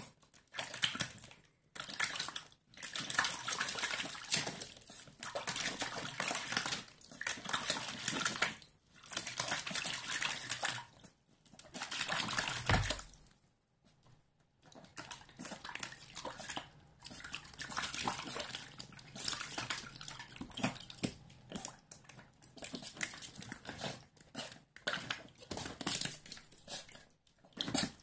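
Schipperke puppy splashing in a shallow plastic tub of water, pawing and biting at it in repeated bursts with short pauses. A dull thump about halfway through.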